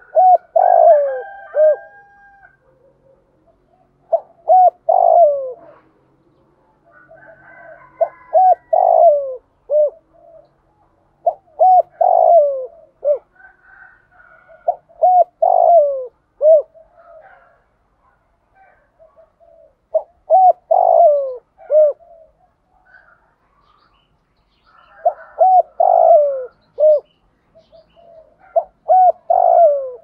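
Spotted dove cooing: a phrase of several short, down-curving coos, repeated about every three to four seconds. This is the male's advertising coo, the call used to lure wild doves.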